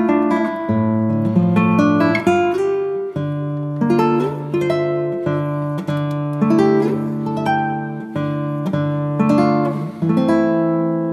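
Background music on a plucked acoustic guitar, picking a melody of single notes over held bass notes.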